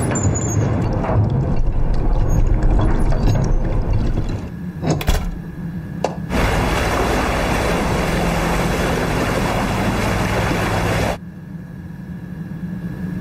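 A ship weighing anchor: the anchor chain rattles and clanks as it is hauled up through the hawsepipe over a low rumble. A steady rushing noise of the ship's engine and water follows, and about eleven seconds in it drops to a quieter low hum with a faint steady tone.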